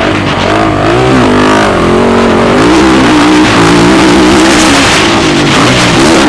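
Motocross bike engines revving hard, the pitch climbing and dropping again and again as the throttle is worked.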